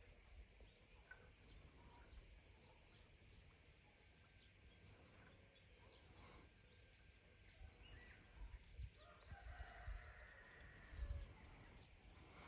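Near silence: faint outdoor ambience with a few faint, short bird calls, and low rumbles of wind or handling on the microphone a little before the end.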